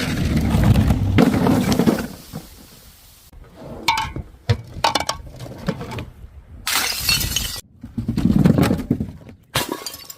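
Glass bottles breaking in several crashes, the first long and crunching, with shards clinking and ringing between them.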